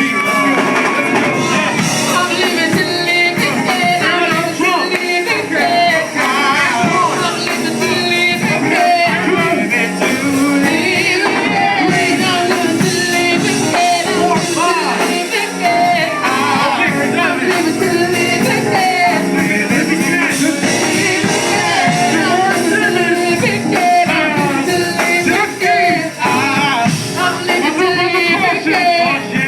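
Live church music: voices singing over a rock-style band, picked up on a phone.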